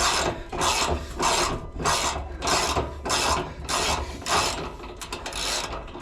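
Hand ratchet wrench worked back and forth on a bolt, clicking in an even rhythm of about two to three strokes a second.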